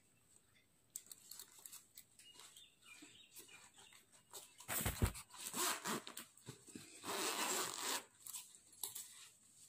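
Zipper on a black fabric insulated lunch bag being pulled open in short runs, with fabric rustling and a soft knock about five seconds in. The longest rasp of the zip comes a little past halfway.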